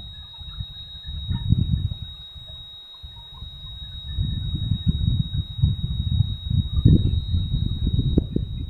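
Wind buffeting the microphone in uneven gusts, easing off briefly and picking up again about halfway through, over a steady high-pitched whine held on one note.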